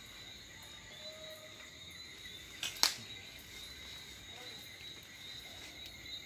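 A steady chorus of insects in high, level trills, with one sharp metallic clack about three seconds in from a spoon striking the aluminium cooking pot as dumplings are dished out.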